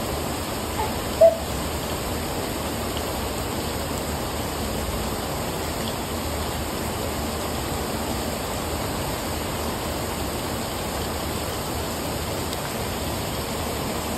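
Heavy rain falling steadily on a brick patio and garden foliage, an even, constant hiss. One brief high note sounds a little over a second in.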